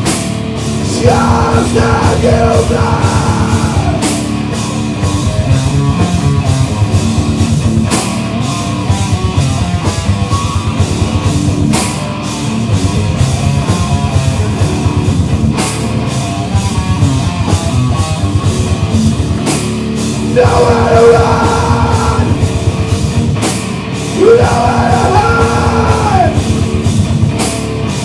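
A rock band playing loud and heavy, with drums and guitars, cymbal crashes about every four seconds, and a singer's voice coming in near the start and again in the last third.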